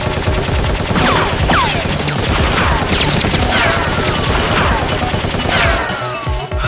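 Rapid, continuous gunfire, heard as a dense fusillade of shots. Falling whistle-like sweeps recur about once a second throughout.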